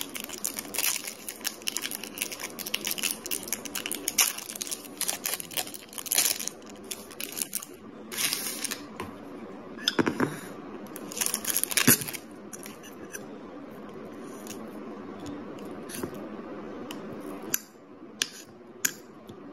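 Foil sweet wrapper crinkling and tearing as it is opened and the halwa is pushed out of it with a spoon, in dense crackles that thin out after about twelve seconds. Near the end, a few light clicks of a steel spoon on a plastic bowl.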